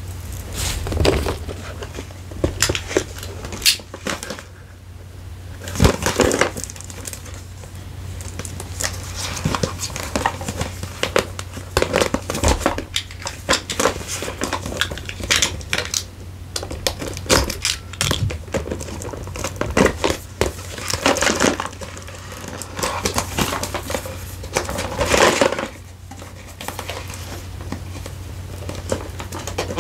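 Close-miked unboxing sounds: packaging crinkling and rustling, with frequent irregular taps and clicks of items being handled, over a steady low hum.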